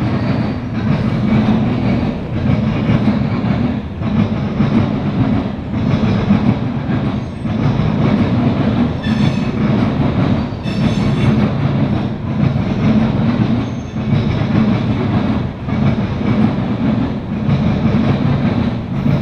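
Loaded grain hopper cars of a CSX freight train rolling past, a steady rumble with wheel clatter. The rumble swells and dips about every second and a half as car after car goes by. There are brief high wheel squeals around the middle.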